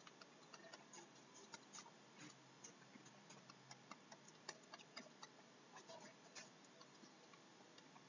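Faint, irregular light ticks and taps of a stylus writing on a digital pen tablet, over near-silent room tone.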